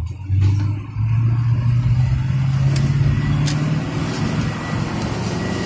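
Vehicle engine pulling away and accelerating, heard from inside the cab. The engine note dips briefly about a second in, rises a little over the next two seconds, then runs steadily, with a couple of faint clicks around three seconds in.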